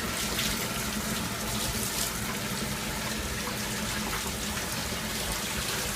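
Warm water running steadily from a tap.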